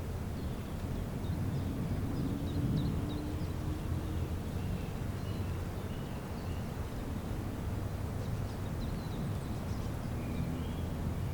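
Outdoor nature ambience: a steady low rumble with faint, scattered bird chirps, and a faint hum for a few seconds early on.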